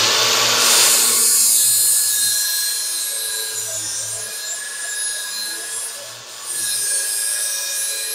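Makita XAG04 cordless angle grinder running, its abrasive disc grinding the edge of a steel lawn mower blade to sharpen it. A steady high whine sits over harsh grinding noise, which eases briefly about six seconds in and then picks up again.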